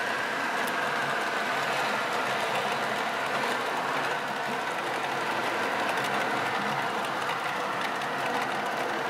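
H0-scale model goods train rolling past on the track: a steady running rattle of the wagons' wheels on the rails, with faint small clicks.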